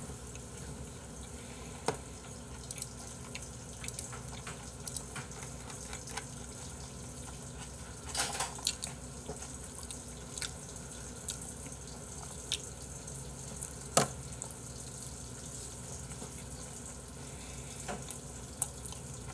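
Chopsticks clicking now and then against a plate and bowl while someone eats, over a steady faint hiss. The clicks are sharp and spaced several seconds apart, with a short cluster a little past the middle.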